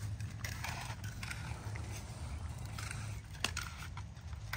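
Dry grapevine canes rustling and scraping against the trellis wires as they are handled and tied, with a sharp click from a handheld electric vine-tying tool about three and a half seconds in, over a steady low rumble.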